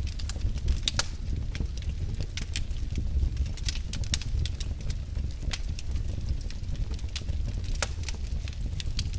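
Wood fire crackling: irregular sharp pops and snaps, some louder than others, over a steady low rumble.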